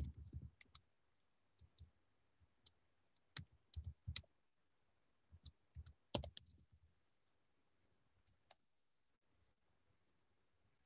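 Scattered faint clicks and soft knocks, irregularly spaced, dying out after about six or seven seconds.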